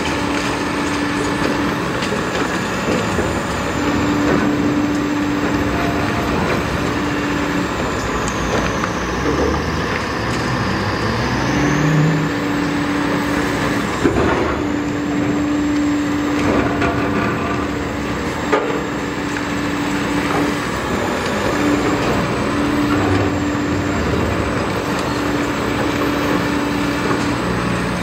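Hydraulic demolition excavators at work: diesel engines running under load with a steady hydraulic hum that cuts in and out every few seconds. About ten seconds in, an engine's pitch rises as it revs, and there are a few sharp knocks, the loudest about halfway through.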